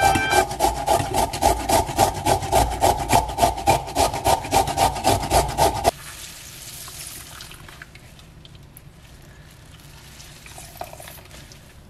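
A yellow zucchini being rubbed fast on a handheld grater into a metal bowl, about four rasping strokes a second, which stop suddenly about six seconds in. After that there is a faint rustle of a cloth towel as the shredded zucchini is wrung out.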